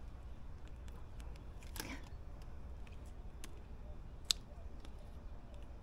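Scissors snipping dragon tail radish seed pods off the plant: a few short, sharp clicks of the blades, the loudest about four seconds in, over a low steady rumble.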